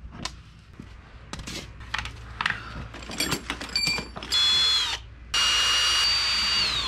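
Power drill running in two bursts as a plywood handcart is taken apart, the second burst about a second and a half long, each whine dropping in pitch as the trigger is released. Tools clink and rattle in a tool bag before it.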